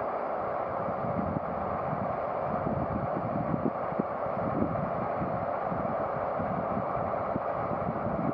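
Strong wind buffeting the microphone in uneven gusts, over the steady running of a V180 (DR class 118) six-axle diesel-hydraulic locomotive's twin diesel engines as it creeps toward the platform.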